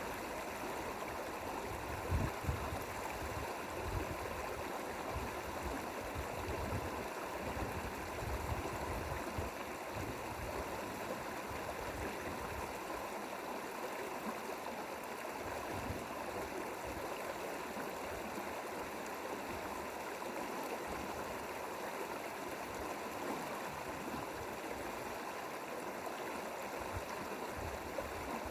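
Mountain valley stream rushing and burbling steadily over rocks, with irregular low rumbles underneath.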